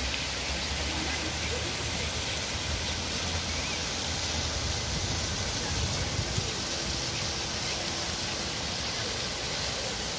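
Steady rush of falling and splashing water from a large ornamental cascade fountain and the fountain jets in its pond.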